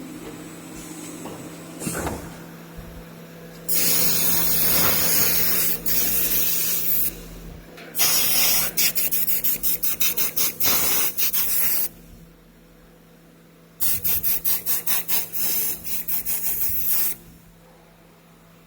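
Machine noise: three long bursts of loud hissing, the second and third chopped into rapid pulses, over a steady low hum.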